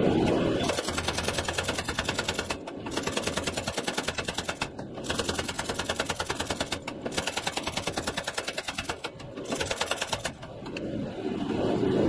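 Small power hammer rapidly striking a hot steel billet, about seven blows a second. The blows come in runs of a couple of seconds with brief pauses between them, as the bar is drawn out.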